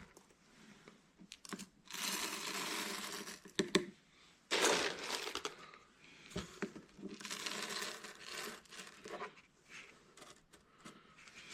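Whole coffee beans being poured from a crinkly bag into the hopper of a KINGrinder K1 manual coffee grinder: three rustling, crinkling pours of a second or two each, with a few sharp clicks of beans dropping.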